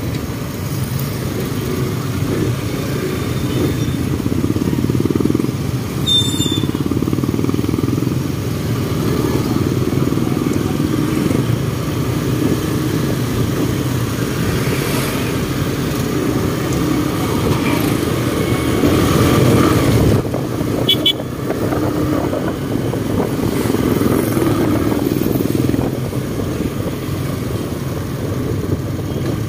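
Steady drone of small motorcycle and tricycle engines with road noise, riding in town traffic, with a short high beep about six seconds in and another about twenty-one seconds in.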